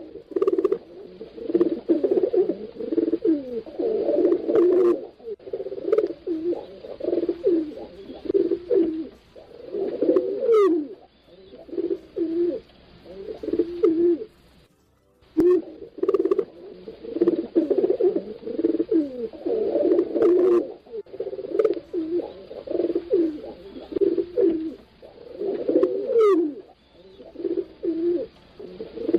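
Several pigeons cooing without a break, their low coos overlapping one another. A couple of thin, high, falling chirps cut through, and all sound drops out for a moment about halfway.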